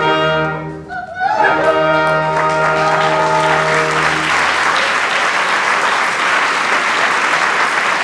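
Opera orchestra playing sustained closing chords while the theatre audience breaks into applause about a second in. The music stops about four and a half seconds in and the applause carries on steadily.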